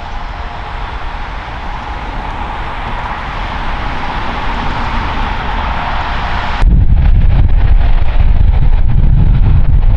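Jet noise of an Emirates Airbus A380's four turbofan engines, a steady rush with a held whine, slowly growing louder. About two-thirds of the way in it cuts off abruptly, and wind buffets the microphone with a loud, low rumble.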